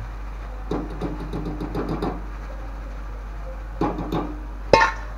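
Wire strainer scooping fried eggplant out of a wok of hot oil, making light metallic rattles and clinks against the wok and the steel bowl in two short spells. A single sharp metal clink with a brief ring comes near the end.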